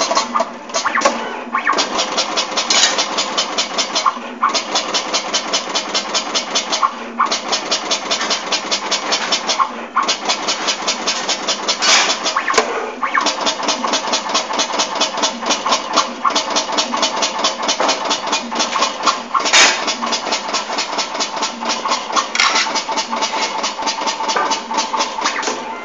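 Automatic 12-colour TPR dispensing machine running, a fast, even clatter of about five strokes a second with short pauses every few seconds and an occasional sharper click.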